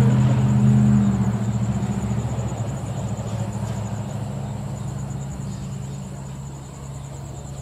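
A vehicle's engine hum, loudest at first and slowly fading away over several seconds as it passes and moves off. Crickets chirp steadily in the background.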